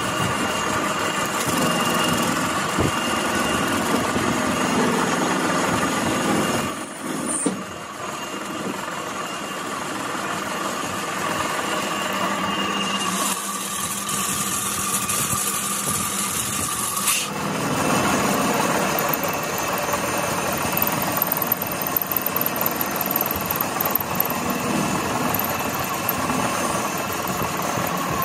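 Metal lathe running steadily while turning a steel gearbox input shaft, a mechanical whir with several steady tones. It drops away briefly about seven seconds in, and a harsh hiss rides over it for about four seconds midway.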